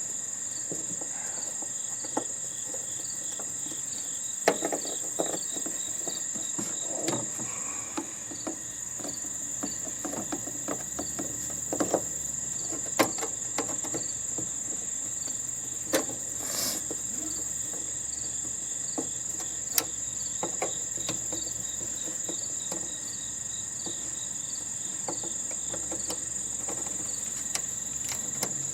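A steady, high insect chorus, like crickets, with scattered sharp clicks and knocks of tools working on the sheet-metal housing of a heating and air-conditioning unit.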